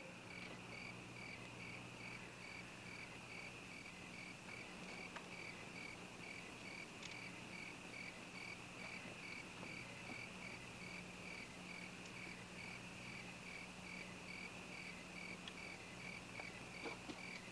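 Cricket chirping in an even, steady rhythm over a low steady hum, with a few faint clicks near the end.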